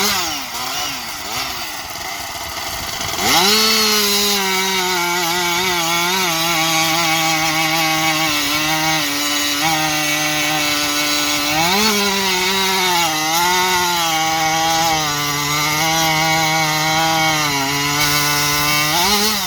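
Modified Husqvarna 572 XP two-stroke chainsaw fitted with an expansion racing pipe, blipped a few times and then held at full throttle while cutting wood. Its pitch sags a little under load and holds steady, with a brief rev up about twelve seconds in and again near the end.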